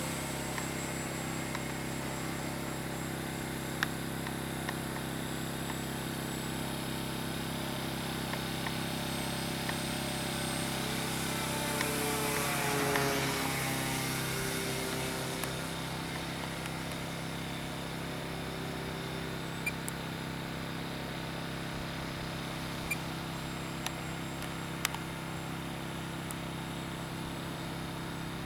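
E-flite Cirrus SR22T RC model plane's electric brushless outrunner motor and three-blade propeller whining steadily in flight. About twelve seconds in it grows louder as the plane passes, its pitch falling as it goes by.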